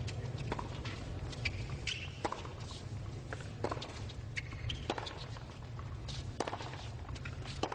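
Tennis rally: a ball struck back and forth by rackets, sharp pops about every second or so, with bounces on the hard court, over a steady low crowd hum.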